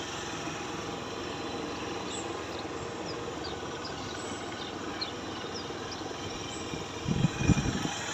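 Steady vehicle engine and street noise, with a few faint, short, high bird chirps in the middle. Uneven low rumbling starts about seven seconds in.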